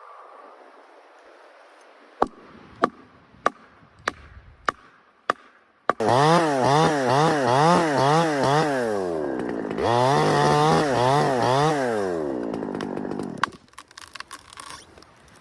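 Six sharp knocks about half a second apart, then a chainsaw running at high revs, its pitch swinging up and down a few times a second, for about seven seconds before it cuts out suddenly. A few scattered crackles follow.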